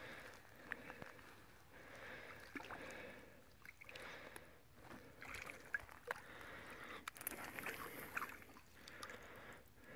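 Faint sloshing and lapping of shallow water around a large wels catfish being held in the shallows, with small irregular splashes and clicks.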